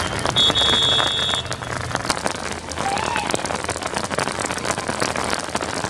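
Rain falling steadily, a dense patter of fine drop ticks, with a brief steady high tone about half a second in that lasts about a second.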